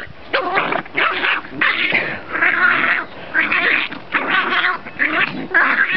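Two puppies play-fighting, giving a run of short, rapid growls and yips.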